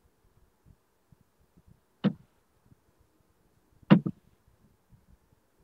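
Short, sharp clicks over faint background hiss: one about two seconds in, a quick double click near four seconds, and another at the end.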